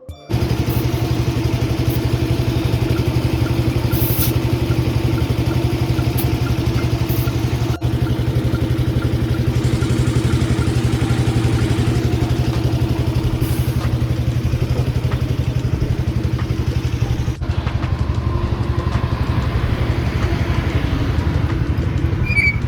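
An engine idling steadily, starting suddenly just after the start.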